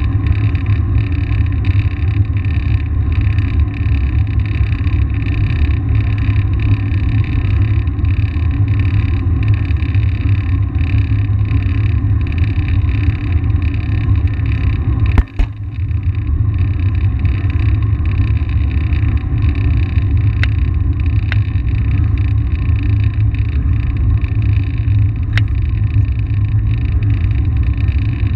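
Wind buffeting the microphone of an action camera on a moving bicycle: a steady low rumble. A single sharp knock sounds about halfway through.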